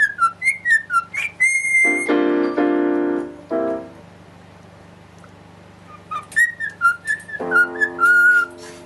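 A whistled melody of short, downward-sliding notes alternating with held piano-like chords, pausing for about two seconds in the middle before the whistling and chords return near the end.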